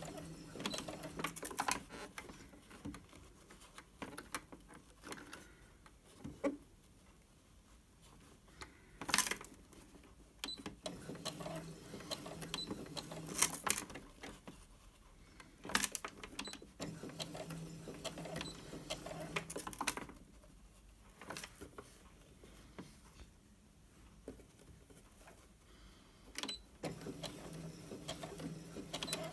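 Brother F420 sewing machine stitching in several short runs of a second or three, stopping between them while the fabric is turned around a tight curve. Sharp clicks come in the pauses between runs.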